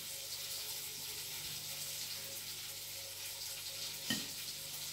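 Steady hiss with a faint low hum, and a single sharp clink of cutlery on a plate about four seconds in.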